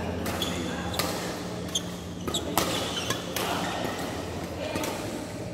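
Badminton rackets striking a shuttlecock in a rally: a few sharp cracks, the loudest about two and a half seconds in, echoing in a large hall, with short high squeaks of shoes on the court floor.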